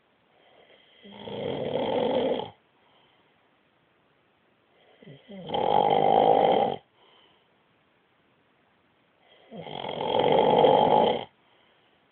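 A man snoring loudly: three long snores, each about a second and a half, coming about every four seconds, with near silence between them.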